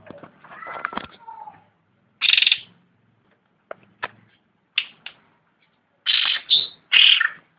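Cucak rante songbird singing in short, loud, bright phrases and quick sharp chips, broken by brief pauses, with the loudest phrases near the end.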